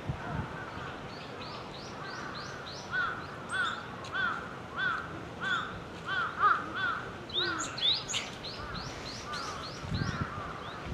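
Wild songbird singing a run of short, clear notes that rise and fall, repeated about one and a half times a second for several seconds, with higher chirps over them. The song begins a couple of seconds in and fades out after about eight seconds.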